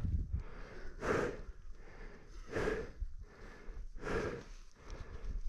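A person breathing hard, winded after physical exertion, with a deep breath about every second and a half.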